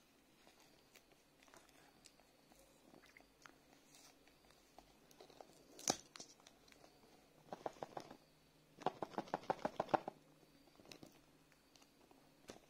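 Seal sticker being picked at and peeled off a cardboard box: faint scratching and small clicks, a sharp click about six seconds in, then two runs of quick crackling ticks as the label tears away, the second lasting about a second.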